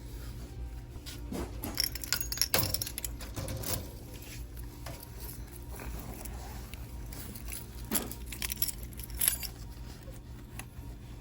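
Light metallic jingling and clinking in several short clusters, the loudest about two and a half and nine seconds in, over a low steady rumble.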